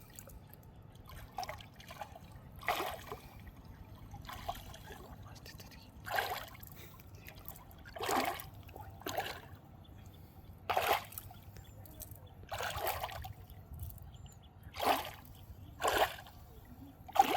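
Water splashing and sloshing in short bursts, about one every one to two seconds, over a low steady trickle.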